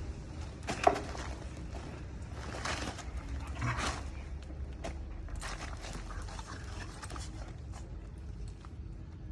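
A husky puppy and a Doberman puppy play-fighting: irregular scuffling and short dog sounds, with a sharp loud one about a second in, over a steady low rumble.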